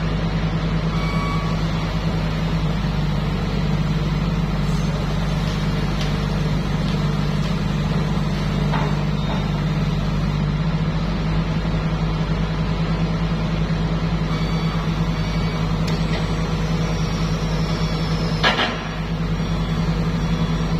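Heavy diesel engine running steadily, with a sharp knock about three-quarters of the way through.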